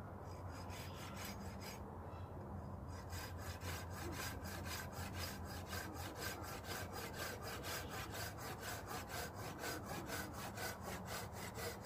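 Silky Gomboy folding pruning saw cutting through a small branch, its teeth rasping on the wood in even back-and-forth strokes. The strokes start light, then settle into a steady rhythm of about three to four a second from about three seconds in.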